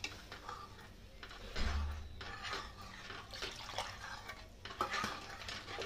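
Steel ladle stirring thin dal in a metal kadhai: the liquid sloshes and the ladle scrapes and knocks against the pan in irregular strokes.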